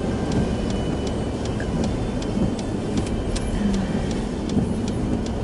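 Vehicle cabin noise while driving slowly: a steady low engine and road rumble, with a light ticking about three times a second.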